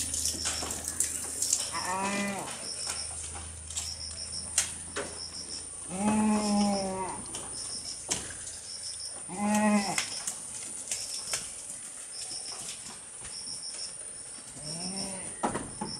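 Goats bleating four times, each call rising and falling in pitch, the second one about a second long. A faint high chirping repeats in twos and threes in the background.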